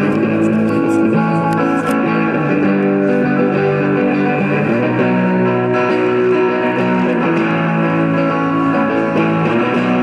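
Electric guitar music: a run of held, ringing notes that change every second or so, at a steady level.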